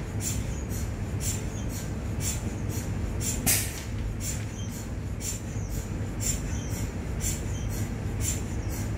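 The pneumatic system of a sliding RF-shielded MRI door, as the door closes and seats in its frame: a steady low rumble with short air hisses about twice a second, and one louder hiss about three and a half seconds in.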